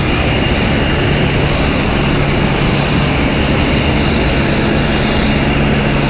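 Jet airliner turbine noise running steadily: a loud, even rush with a steady low hum and a high whine.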